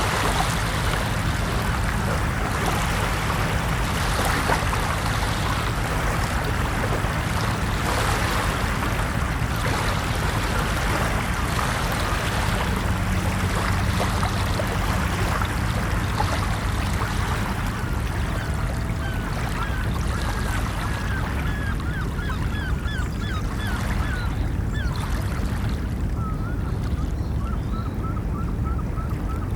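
Ocean surf washing steadily, with a low rumble beneath it. In the second half a bird calls in quick series of short notes, about four a second near the end.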